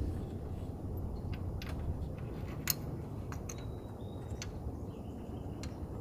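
Scattered light clicks and ticks of a spark plug being threaded into the engine by hand, the sharpest about two and a half seconds in, over a steady low background hum.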